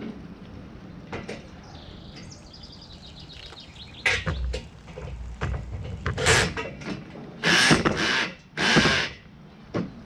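Handling noise of a gazebo's metal roof frame being fitted onto its corner post: a few light clicks, then from about four seconds in a series of loud, short scrapes and knocks.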